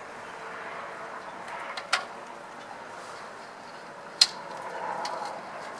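Handling noise as a mesh brew bag is fitted into and stretched over the rim of a stainless steel brew kettle: faint rustling and two sharp clicks about two seconds apart.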